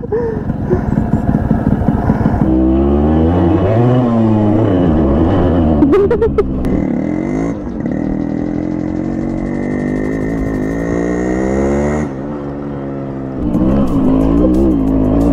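Motorcycle engine revving hard again and again, its pitch climbing and dropping, with a rougher low stretch at the start.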